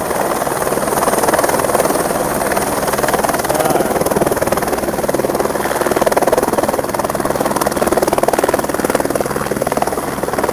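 A light helicopter running close by on the ground with its rotor turning at speed: a loud, steady beat of rotor blades over the engine.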